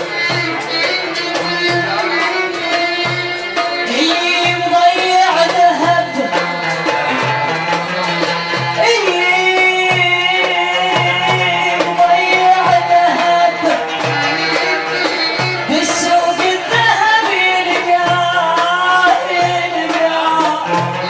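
Iraqi folk song: a woman singing with a traditional ensemble, a hand drum keeping a steady beat of about two strokes a second beneath the melody.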